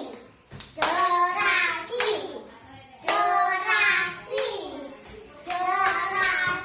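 A child's high voice calls out a short sing-song phrase three times, about every two and a half seconds.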